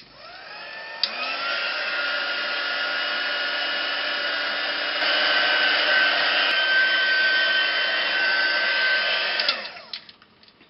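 Handheld craft heat tool switched on with a click, its fan spinning up with a rising whine, then running steadily while drying wet spray mist on a canvas. It gets louder about halfway through and winds down with a falling whine near the end.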